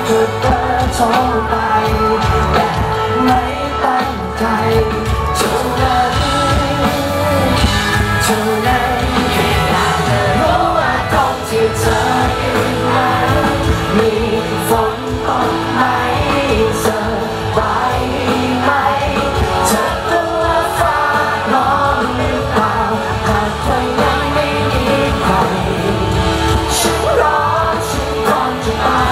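A live rock band playing loudly, a male vocalist singing into a handheld microphone over electric guitar.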